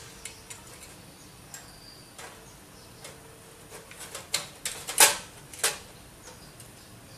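Metal tweezers clicking and tapping against ceramic processor chips and the metal plate they are heating on. A few scattered ticks, then a quick run of sharper clicks about four to six seconds in, the loudest about five seconds in.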